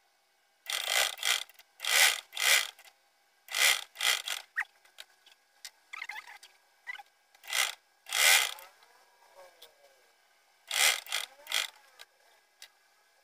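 Sewing machine stitching in short runs: about nine quick bursts of needle-and-shuttle clatter, each under a second, with pauses between. Small clicks and fabric rustles fill the pauses as the cloth is turned.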